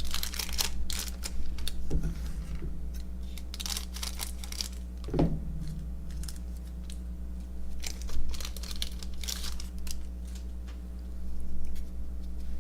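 Trading cards being handled and leafed through, with irregular light clicks and rustling and some crinkling of a pack wrapper, over a steady low hum.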